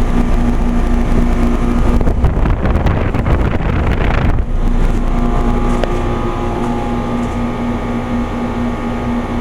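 Trane XL15i 3.5-ton heat pump outdoor unit running in heat mode: a steady compressor hum with the condenser fan's rush of air. For about two seconds in the middle a louder, noisier rush of air covers the hum, which then comes through clearly again.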